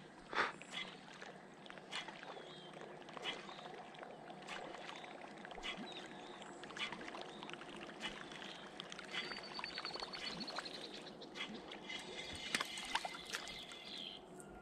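Spinning fishing reel cranked to bring in a lure, with scattered clicks and light water sounds; a few short chirps and a quick run of ticks sound in the background.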